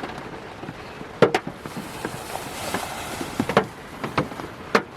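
Scattered, irregular knocks and taps over a soft hiss, the sharpest about a second in, around three and a half seconds in and near the end.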